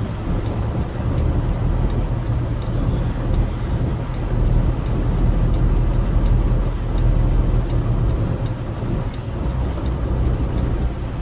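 Semi-truck's diesel engine running at low speed while the rig manoeuvres, a steady low drone that swells a little midway.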